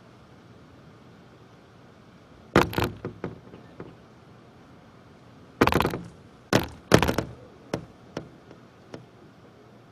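A run of loud, sudden knocks and thumps: a hard pair about two and a half seconds in that trails off into lighter taps, then a heavier cluster of three bangs around six to seven seconds in, followed by a few fainter knocks.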